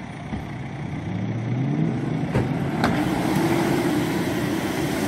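SUV engine revving hard under load as a mired SUV is pulled out of silty mud on a tow strap, the pitch rising over about two seconds and then holding high. Two short clicks near the middle.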